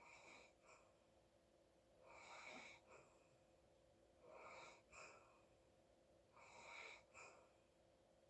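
Faint, wheezy breathing of a sleeping person, one breath about every two seconds, each lasting under a second.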